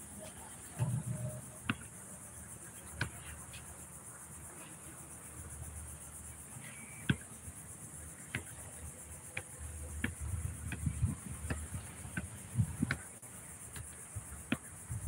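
Steady high-pitched drone of insects, with a scattered series of sharp knocks, the loudest about seven seconds in.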